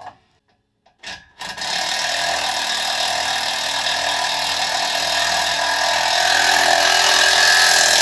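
A power tool running steadily at full speed with a loud, hissing mechanical whine. It starts about a second and a half in and cuts off abruptly at the end.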